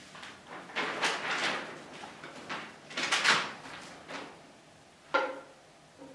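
Quiet rustling and handling noises in a pause in the music: two longer rustling bursts, then a short sharp knock with a brief squeak about five seconds in.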